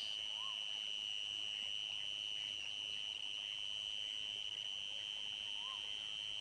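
Crickets chirping in a steady, high-pitched, unbroken chorus. Two brief, faint rising-and-falling calls sound, once about half a second in and once near the end.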